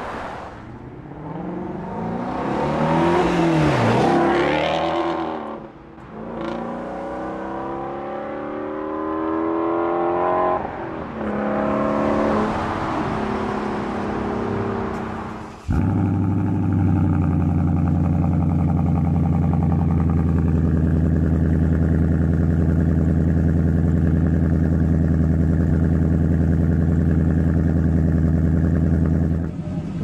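Ford Mustang Shelby GT350's V8: the engine sweeps up and down in pitch through several rising runs of revs in the first half. About halfway through it cuts to a steady, unchanging engine note that holds almost to the end.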